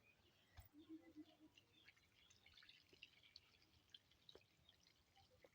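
Near silence, with faint scattered clicks and drips of water.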